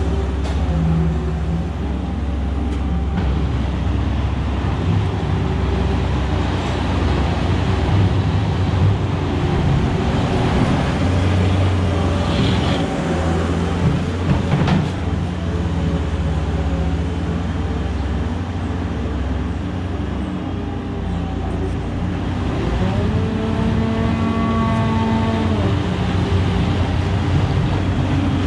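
Vehicle engine running steadily with a constant low hum. About three-quarters of the way through, a higher tone rises, holds for a few seconds and falls back.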